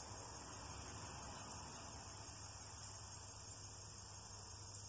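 Faint, steady insect chorus of crickets, a high, even shrill, over a low hum.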